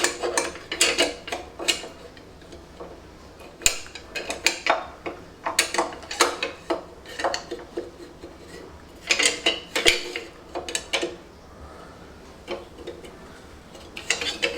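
Thin sheet-metal engine tinware clinking and rattling as it is handled and fitted around a dynamo: irregular clusters of light metallic knocks with short pauses between them.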